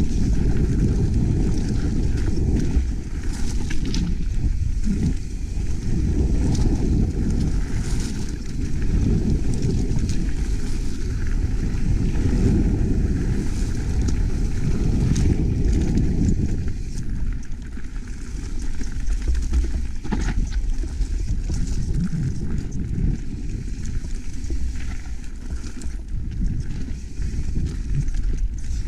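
Mountain bike descending a rough downhill trail: wind rushing over the microphone, with the rattle and knocks of the bike's tyres and frame over rocks and roots. The rumble eases a little about two-thirds of the way through.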